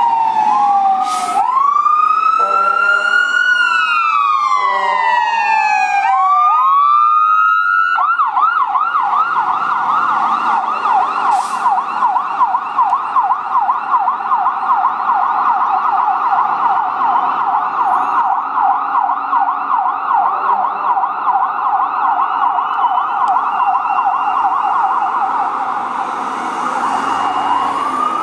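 Whelen 295 electronic sirens on responding 2016 Spartan Gladiator Sirius/Smeal fire trucks. The siren starts on a slow wail, rising and falling over several seconds. About eight seconds in it switches to a fast yelp sweeping up and down a few times a second, and it goes back to a wail near the end.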